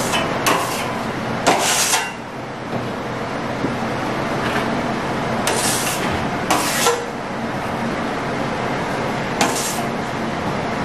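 Steel trowel scraping wet joint compound across a plaster wall in about six short strokes, the loudest near two seconds in, over a steady background hiss.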